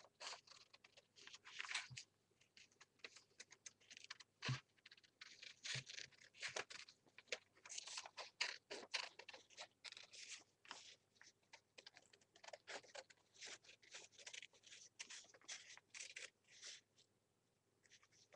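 Scissors snipping through a sheet of paper in short, irregular cuts, with the paper rustling as it is turned.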